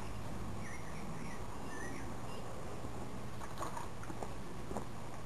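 Model Newcomen atmospheric engine working in live steam: a few light clicks in the second half over a steady low hum, with faint short squeaks earlier.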